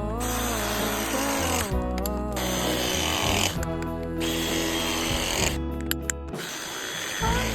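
Background music with a strong bass line, in short sections that break off and restart every second or two.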